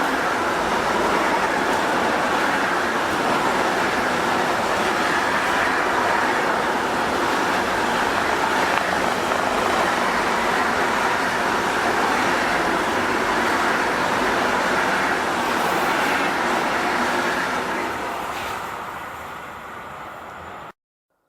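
Freight train passing: a steady rolling noise of wheels on rail that fades over the last few seconds, then cuts off suddenly.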